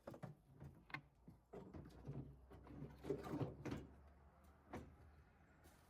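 Faint clicks, knocks and rubbing of a plastic rear bumper cover being offered up against the towbar for a test fit, with a sharp click about a second in and a cluster of knocks about three seconds in.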